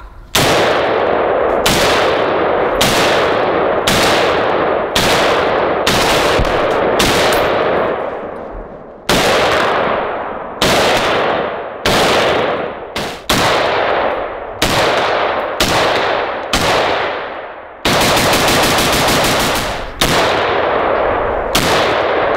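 Knight's Armament SR-25 rifles in 7.62x51/.308 firing semi-automatic, each shot sharp and loud and followed by a short echoing ring. The shots mostly come about a second apart, with a fast, close string of shots lasting about two seconds near the end.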